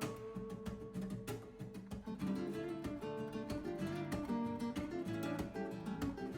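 Background music: acoustic guitar playing a plucked, strummed melody.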